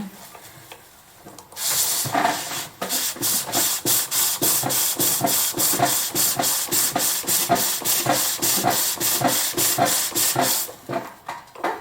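Green-wood bowl on a pole lathe being smoothed, a steady scraping against the spinning wood that pulses in an even rhythm with the lathe's back-and-forth strokes. It starts after a brief pause and stops shortly before the end.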